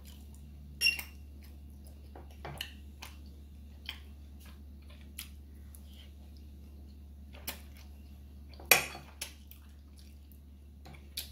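A metal fork clinking against a ceramic dinner plate: about eight separate sharp clinks, the loudest one about three-quarters of the way through.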